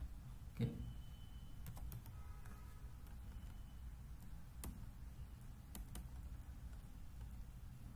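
A handful of sparse, sharp clicks from a computer keyboard being operated, over a faint low steady hum. A brief low thump about half a second in is the loudest sound.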